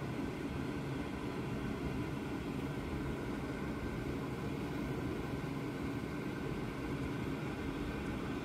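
Kitchen range hood fan running with a steady, low rushing noise.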